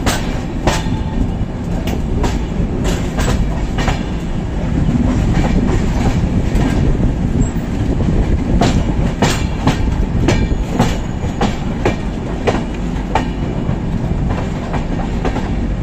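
Indian passenger express train running, heard from on board: a steady low rumble of the coaches with sharp, irregular clacks of the wheels passing over the track.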